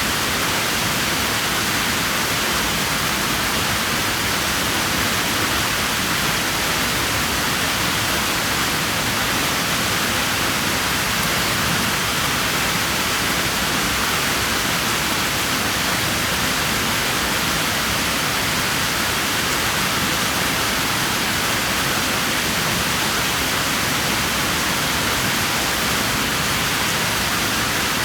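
Steady rushing of water in a swimming pool, an even hiss with no separate splashes standing out.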